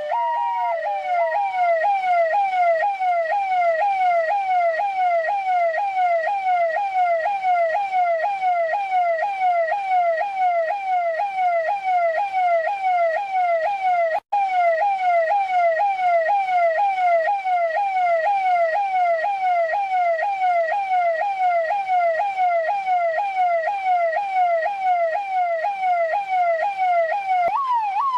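Russian police car siren, switching from a two-tone hi-lo to a rapid up-and-down yelp within the first second, then holding that fast sweep a couple of times a second. It drops out for an instant about halfway through, and near the end it shifts to a higher sweep.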